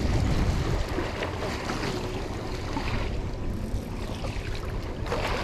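Wind buffeting the microphone over the rushing noise of the sea around a small boat: a steady noise with no distinct events.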